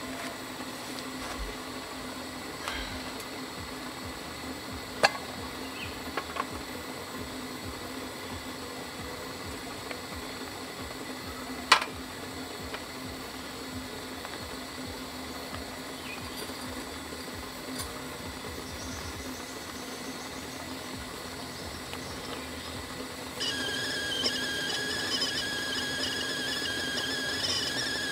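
A few sharp clicks of a spoon and jars set down on a metal camp table, then about 23 seconds in a kettle on a portable gas stove starts whistling, a high wavering tone as the water comes to the boil.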